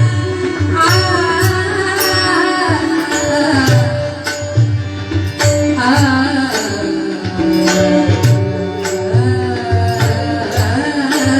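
Marathi devotional bhajan: a singer's voice gliding through an ornamented melody over steady drum strokes and regular small-cymbal beats, with sustained held notes underneath.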